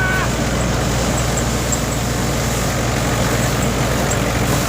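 Multicrop thresher running steadily: a continuous engine drone under the noise of the working machine, with no change in pace.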